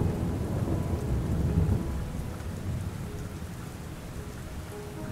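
Steady rain falling, with a low rumble of thunder that fades away over the first couple of seconds.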